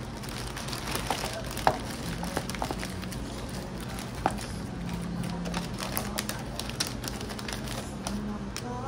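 Thin plastic bag crinkling and rustling as it is gathered and tied around a paper takeout box, with scattered light clicks and two sharper knocks, about two and four seconds in.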